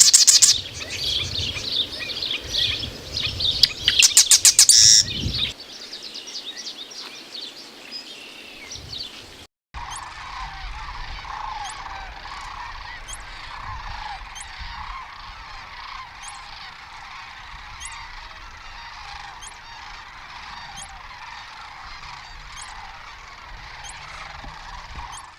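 A large flock of geese calling together in a dense, continuous chorus of honks. Loud close calls in the first five seconds give way to a quieter stretch, then after a short break about ten seconds in, a steadier massed chorus runs on.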